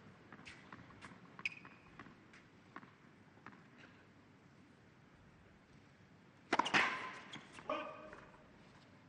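A tennis ball bounced several times on an indoor hard court before a serve, faint single ticks. About six and a half seconds in comes a sharp, loud racket strike, the serve, followed a second later by a shorter second hit.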